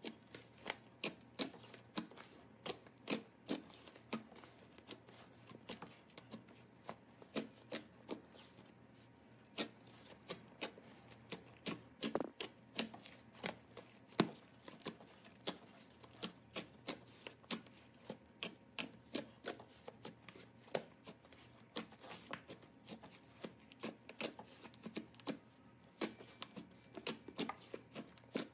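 Hands pressing, stretching and poking thick slime, giving irregular crisp clicks and pops, a few a second, as trapped air pockets burst.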